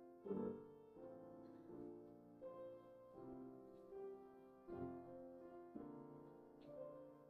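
Soft, slow piano music: chords and melody notes struck roughly once a second, each left to ring.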